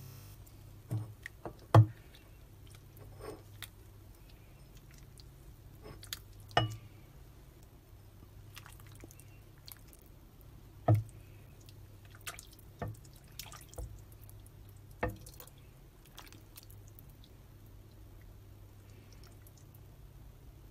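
Metal ladle serving fish-cake kimchi stew from a pot into a soup bowl: scattered clinks and knocks of the ladle against the pot and bowl, with the broth dripping and splashing. A faint low hum runs underneath.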